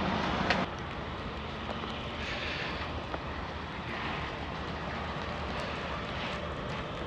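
Vehicle driving noise that cuts off abruptly about half a second in, giving way to a quieter, steady rushing noise with soft swells, the kind wind makes on a microphone.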